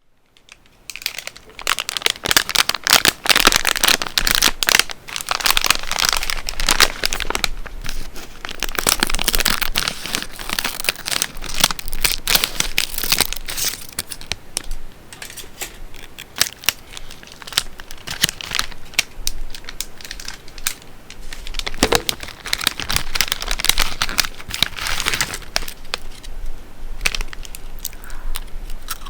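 Potato chip bag crinkling and rustling as it is handled, a dense run of crackles that swells and eases.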